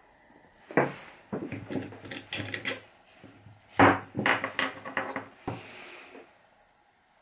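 Parts of a homemade scrap-wood strap winder being handled: wood knocking and rubbing on wood, with a sharp knock about a second in and a louder one near the middle.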